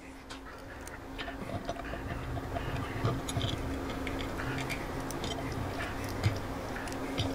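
Small metallic clicks and taps as the derby cover screws on a Harley-Davidson Milwaukee-Eight primary cover are started and run in by hand, over a steady low hum.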